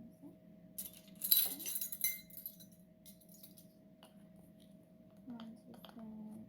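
Small clinks of a measuring spoon against a glass mixing bowl and spice container while spices are measured out, a few sharp clinks about a second in and one lighter tap later.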